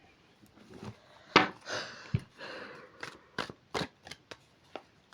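A deck of tarot cards being shuffled and handled: a papery rustle, then a quick run of sharp card snaps in the second half.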